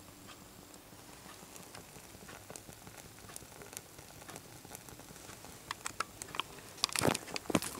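Boiler of a Wilesco toy steam engine heating over a burning solid fuel tablet: faint irregular ticking and crackling as the water slowly starts to bubble, growing busier toward the end, with a few louder knocks about seven seconds in.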